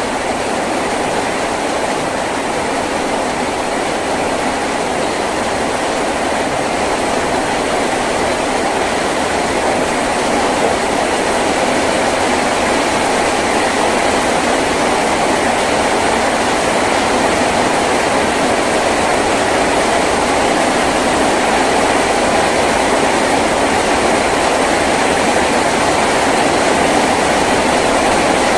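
Heavy rain falling on a tin roof: a dense, steady wash of noise without separate drops standing out, gradually getting a little louder.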